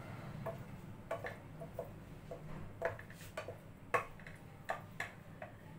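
Wooden spatula stirring chicken pieces in a non-stick frying pan, knocking and scraping against the pan in irregular clicks, a couple a second, over a steady low hum.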